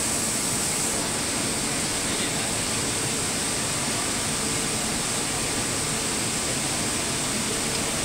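Steady industrial noise at a hot strip mill's coiler: an even, unbroken rushing hiss, strongest high up, with no distinct knocks or tones.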